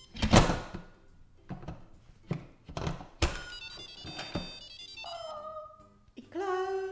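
Pressure lid of an 8-quart Instant Pot Duo Crisp being fitted and turned to lock: a run of sharp plastic and metal knocks and clicks, over background music with a melody. Near the end a few held tones sound.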